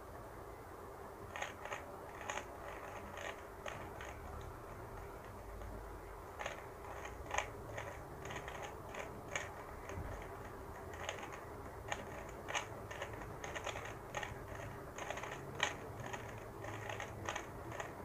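Plastic 3x3 speed cube being turned by hand: irregular runs of light clicks as the layers snap round, in quick flurries with short pauses between.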